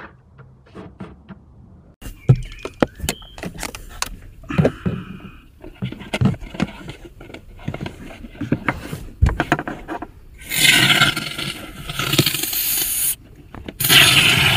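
Clicks, knocks and scrapes as the extension tube of a car air-conditioning cleaner spray can is worked into a floor air vent, then the aerosol spraying through the tube in two long hisses with a short break between them.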